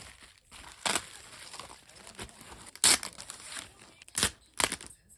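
Parcel packaging being torn open and crinkled by hand: a steady rustling with several sharp rips, the loudest about three seconds in.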